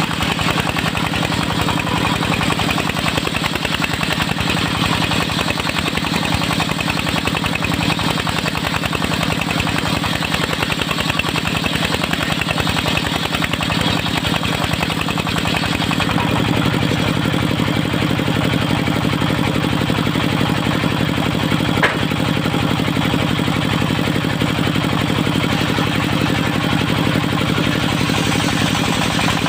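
The engine driving a mobile circular sawmill running steadily, its low note growing fuller a little past halfway. One sharp click sounds about three quarters of the way through.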